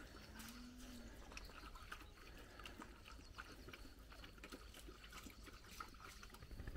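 Faint scuffling of dogs playing in a sand pit, with scattered soft ticks and one short low call about half a second in.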